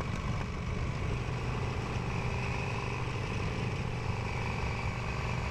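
Custom chopper motorcycle engine running steadily at idle, with no revving.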